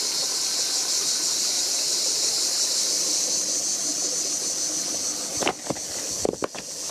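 Dense, steady high-pitched insect chorus droning without a break. A few sharp knocks come near the end.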